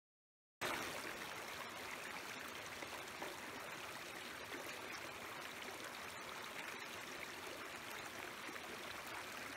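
Steady rush of running water from a stream, cutting in suddenly just under a second in, with a few faint clicks over it.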